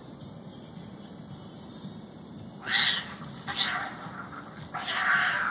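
Cats yowling in a fight: a loud cry about halfway in, a shorter one, then a longer one near the end.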